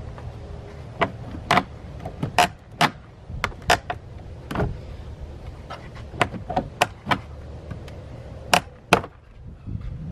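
Irregular sharp clicks and knocks, one or two a second, of a Ford F-150's factory side mirror being handled and worked loose from the door, its plastic housing and mount knocking against the door frame.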